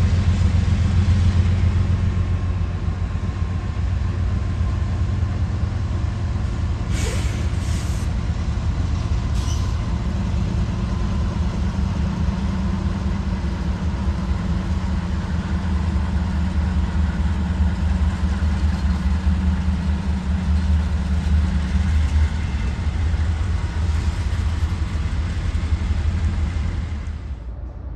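Several Union Pacific diesel-electric locomotives passing slowly, their engines giving a steady low rumble. A couple of brief hissing bursts come about seven and nine seconds in.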